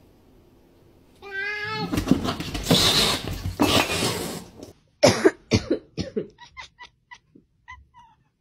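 Cats fighting: a short wavering yowl, then about three seconds of loud hissing and scuffling. About five seconds in, a sharp cry repeats over and over in fading echoes.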